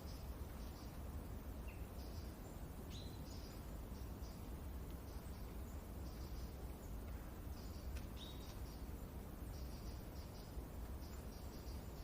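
Forest ambience: small birds chirping in short high clusters every second or so, with a few quick single chirps, over a steady low rumble of wind.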